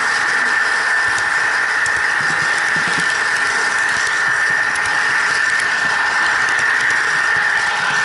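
Model train running along layout track: a steady high whine from the locomotive's small electric drive over the hiss of wheels rolling on the rails, with faint light clicks.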